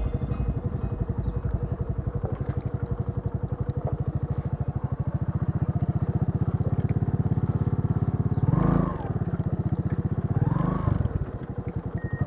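Motorcycle engine chugging at low speed, with two short revs that rise and fall in the last few seconds. The throttle is being fed gently on loose ground, where even a little throttle sets the tyre sliding.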